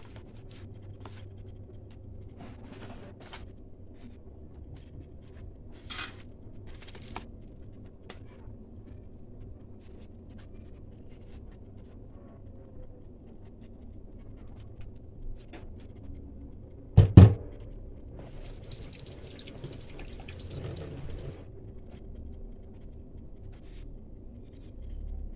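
Faint kitchen handling noises over a low steady hum: scattered light clicks and taps, one sharp knock about two-thirds of the way through, then about three seconds of hiss.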